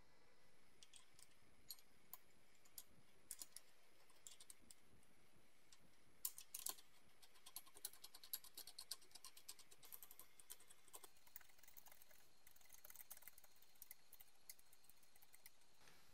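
Faint, irregular small metal clicks and ticks as the knurled adjusting nut of a Stilson pipe wrench is threaded and turned on the hook jaw. The clicks are sparse at first and come thickest about halfway through.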